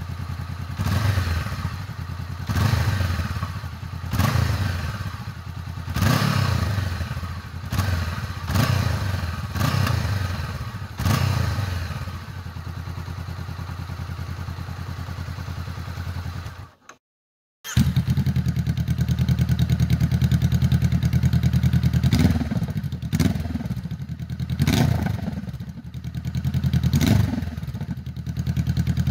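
Honda CBR500R's parallel-twin engine idling, blipped on the throttle about every second and a half, heard through its exhaust in a silencer sound test. After a brief cut about two-thirds of the way in, the idle is noticeably louder with a different exhaust setup, and a few more blips follow.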